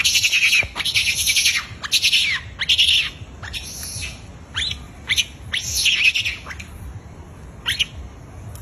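Macaques screaming in a squabble: a run of shrill, rasping screams with short falling squeals between them, thinning out after about six seconds.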